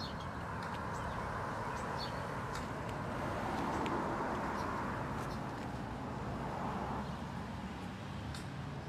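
Outdoor background of steady traffic noise that swells and fades as vehicles pass, with birds chirping briefly now and then.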